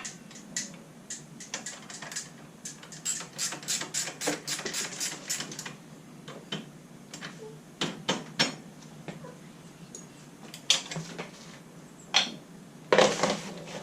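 Light metallic clicking and clinking of hand tools and small brake parts being handled. A quick run of clicks comes a few seconds in, then scattered single clicks and a short clatter near the end.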